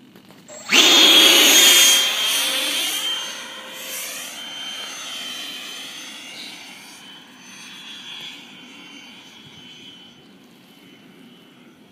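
Electric ducted fan of a Zephyr V-70 RC jet glider spooling up to full throttle at hand launch under a second in: a loud high whine that wavers in pitch and fades as the plane climbs away.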